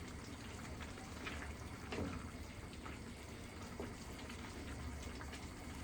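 A pot of beef curry simmering with a steady bubbling hiss, over a low hum, with a faint knock about two seconds in.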